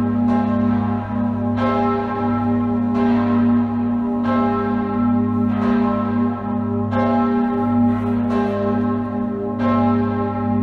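Full peal of six swinging church bells, tuned G♯, B, D♯, F♯, G♯ and E and cast between 1781 and 1972. The oldest were cast by Jakob Mathis Rageth. Fresh strokes fall about every second or so over a deep, lingering hum.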